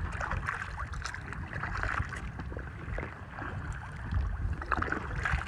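Kayak paddle strokes in calm sea water: irregular splashing and dripping from the paddle blades and water lapping at the hull, over a low wind rumble on the microphone.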